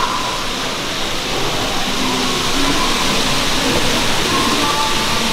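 Steady hiss of hobby-shop background noise, with faint indistinct voices mixed in.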